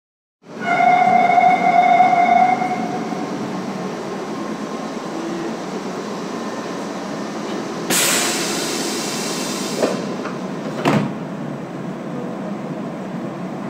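Meitetsu 100 series electric train standing in a subway station: a steady buzzer-like tone for about two seconds, then a steady rumble, a loud hiss of compressed air about eight seconds in lasting about two seconds, and two short knocks shortly after.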